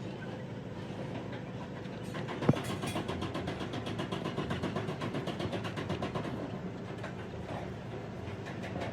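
An engine running steadily with a fast, even ticking, and one sharp knock about two and a half seconds in.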